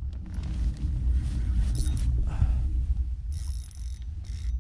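Fishing reel drag running in rapid clicks as a hooked redfish pulls line off it, over a steady low rumble.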